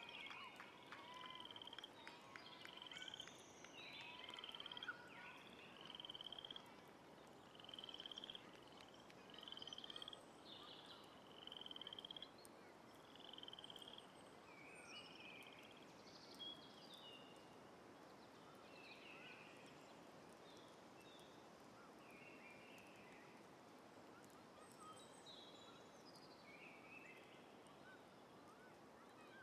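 Faint outdoor nature ambience: a short high animal call repeated about once a second through the first half, then scattered faint chirps over a light hiss.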